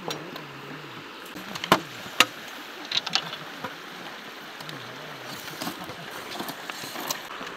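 Steady rush of a shallow river, with a handful of sharp knocks of a knife chopping green bamboo poles, the loudest around two seconds in.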